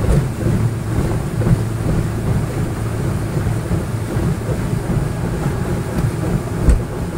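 Boat engine running steadily under the rush of wind on the microphone, with one sharp thump near the end.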